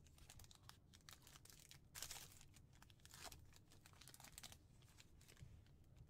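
Wrapper of a 2015 Topps Gypsy Queen baseball card pack being torn open and crinkled by hand: quiet, irregular crackling, loudest about two seconds in.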